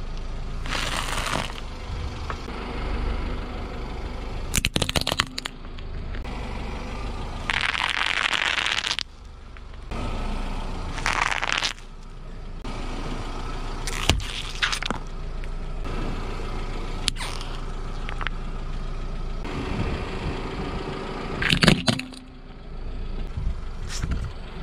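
A car tyre rolling over and crushing a series of objects over an idling car engine: crunching and crackling bursts, clusters of sharp pops, and near the end the loudest event, a sharp crack of plastic breaking as a toy truck is crushed.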